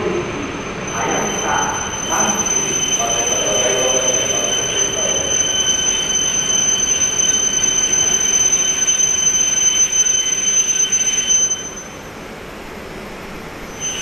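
ALFA-X (E956) Shinkansen test train rolling slowly through a station with a high, steady squeal over the running noise. The squeal stops sharply near the end and comes back briefly at the very end.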